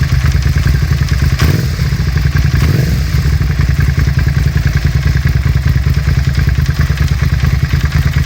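2003 Suzuki SV650's V-twin engine running at idle with a fast knocking, clicking clatter that appears only once the engine is warm, after about five minutes, and not when cold. A single sharp knock about a second and a half in.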